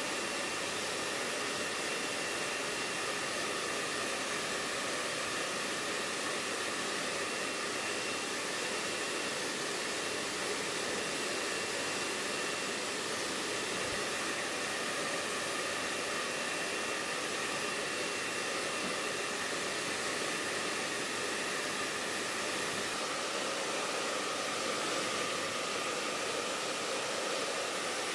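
Handheld hair dryer blowing steadily, a continuous rush of air with a faint steady whine in it.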